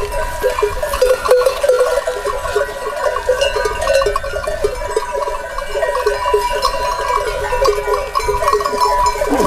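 Many livestock bells on a flock of sheep and goats ringing and clanking at once, with overlapping strikes and one steady ringing tone.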